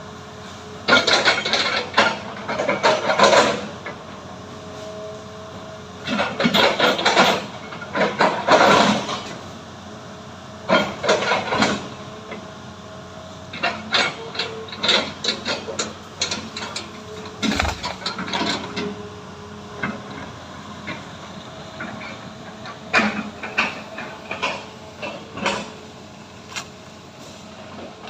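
Diesel engine of tracked heavy logging machinery running steadily, with repeated bursts of clanking and rattling every few seconds.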